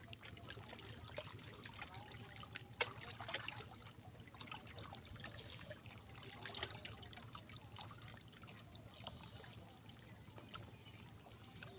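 River water lapping and trickling against concrete revetment blocks at the water's edge, with scattered small clicks and one sharper tap about three seconds in.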